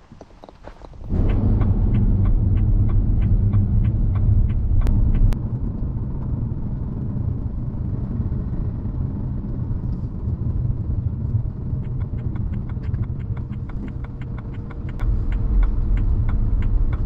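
Car driving slowly, heard from inside the cabin: a steady low engine and road rumble, starting about a second in, with many light ticks over it.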